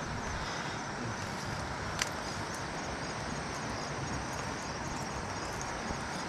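Steady rushing of a fast-flowing river over rocks, with one short sharp click about two seconds in.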